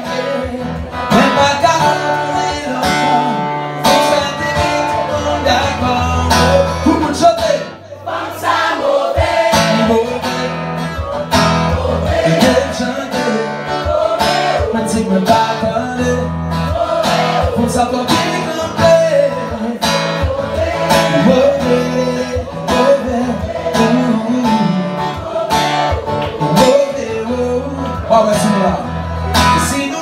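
A male voice singing a song with strummed acoustic-electric guitar, played live and unplugged, with a brief break about eight seconds in.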